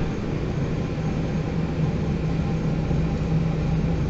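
Diesel engine of a MAN NG 313 articulated city bus running with a steady low drone, heard from inside the passenger cabin.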